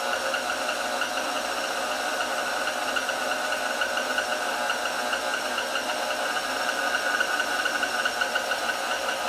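KitchenAid stand mixer running steadily, its motor and gears making a constant whine as they turn the pasta roller attachment while a sheet of dough is fed through the rollers.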